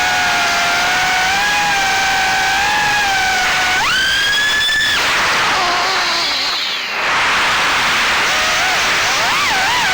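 Small FPV quadcopter's brushless motors (GEPRC 1206 4500KV spinning 3-inch props) whining in flight. The pitch steps up sharply about four seconds in as the throttle is punched, drops back a second later, then warbles up and down with quick throttle changes near the end.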